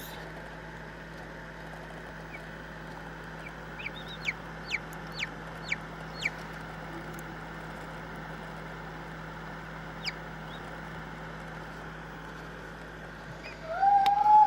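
Hatching chicks peeping from pipped eggs: a run of about six quick, high, falling peeps, then a single peep, over a steady background hum. Near the end comes a louder, lower call that rises in pitch.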